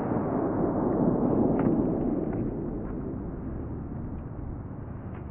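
The aftermath of a flash-powder firecracker blast: a broad rushing, rumbling noise that swells over the first second or two and then slowly dies away, with a few faint ticks scattered through it.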